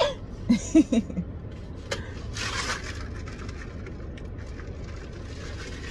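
Steady low road rumble inside a moving car's cabin. A short burst of a woman's laughter comes near the start, and a brief hiss about two and a half seconds in.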